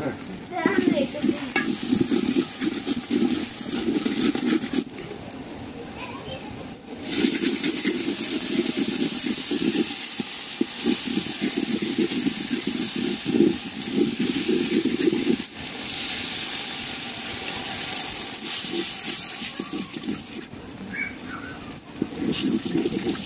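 Onions and spices frying in hot oil in an aluminium pot, sizzling, while a flat spatula stirs and scrapes against the pot in quick irregular strokes. The sizzle grows louder about seven seconds in and eases off near the end.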